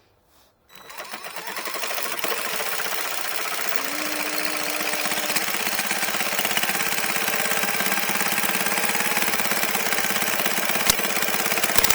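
Power cutting tool starting up about a second in and running steadily with a fast, buzzing chatter as it trims a small piece off.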